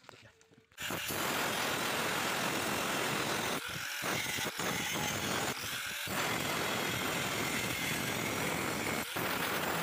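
Electric angle grinder with an abrasive disc cutting into sheet steel: a loud, steady grinding that begins abruptly about a second in, with a few short dips as the disc eases in the cut.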